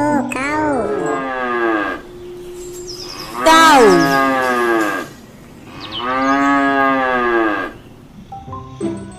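Cattle mooing: a series of long calls, the loudest one about three and a half seconds in sliding down in pitch, and another long moo near the end.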